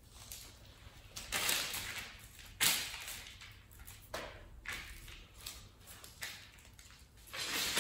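Plastic poly tarp crinkling and rustling in a string of short, irregular bursts as it is pulled and knelt on.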